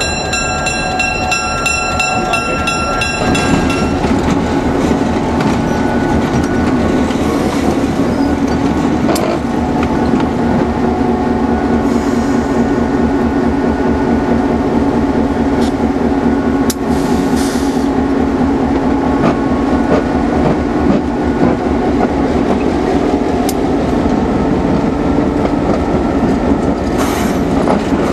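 EMD GP7 diesel-electric locomotive moving off, its 16-cylinder two-stroke EMD 567 engine running under load with a steady drone that grows louder about three seconds in. A high ringing sounds for the first three seconds and then stops, and a few sharp clicks from the wheels on the track follow.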